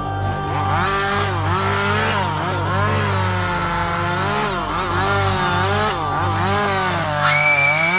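Chainsaw engine revving, its pitch rising and falling over and over. A high-pitched held tone joins in near the end.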